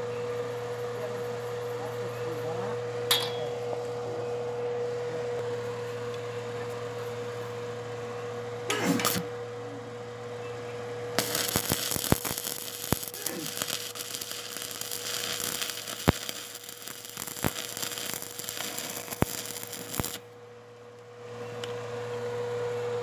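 Stick-welding arc on steel angle iron, crackling and hissing with sharp spatter pops for about nine seconds, starting about eleven seconds in and cutting off suddenly. A steady hum runs underneath, with two short knocks earlier on.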